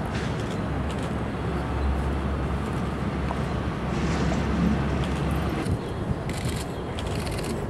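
Outdoor background noise with a steady low rumble that drops away about five and a half seconds in, and a few brief scratchy rustles near the end.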